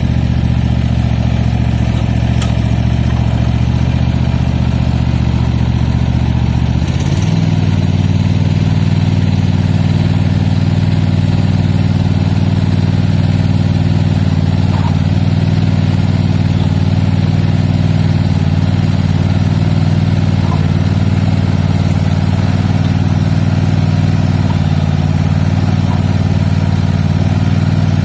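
Cub Cadet ZT1 Ultima zero-turn mower engine running steadily; about seven seconds in, its speed steps up to a higher steady pitch and holds there.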